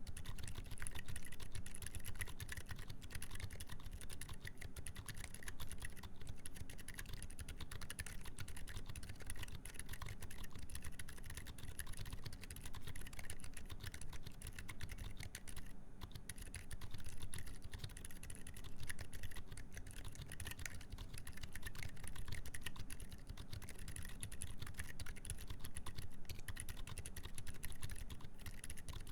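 Continuous fast typing on a mechanical keyboard with Gazzew U4 Boba silent tactile switches on a full FR4 plate under GMK keycaps: a dense, steady patter of muted keystrokes, with a brief pause about sixteen seconds in.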